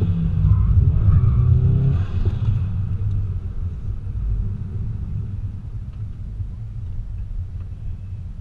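2015 Subaru WRX STI's turbocharged 2.5-litre flat-four, running a Cobb cold air intake and tune, heard from inside the cabin: loud under throttle for the first two to three seconds, then dropping away as the driver lets off, leaving a low rumble as the car rolls on.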